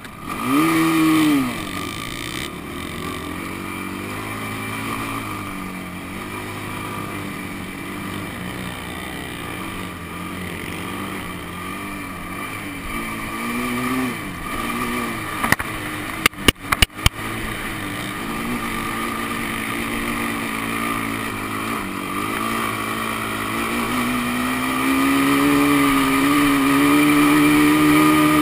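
A Honda sport quad's engine running under throttle on sand, its revs rising and falling as it is ridden, with a short rev-up at the start and a long, high, held pull near the end as it climbs a dune. A few sharp knocks come about halfway through.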